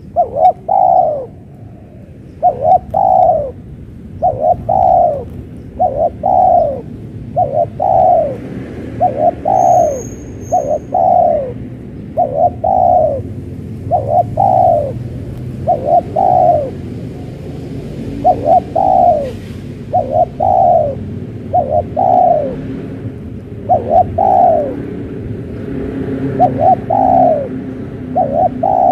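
Spotted doves cooing over and over: loud, close falling coos in quick pairs with short gaps between, over a steady low rumble. A brief high chirp from another bird comes about ten seconds in.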